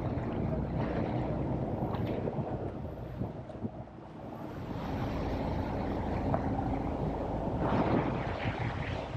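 Motorboat under way on open water: a steady low engine hum under the rush and splash of water along the hull, with wind buffeting the microphone. The water noise swells about five seconds in and again near the end.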